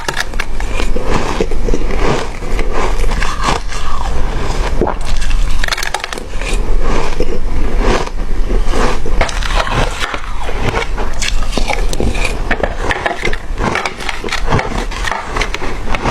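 Hard ice being bitten and chewed close to the microphone: a dense run of sharp cracks and crunches, with brief lulls twice.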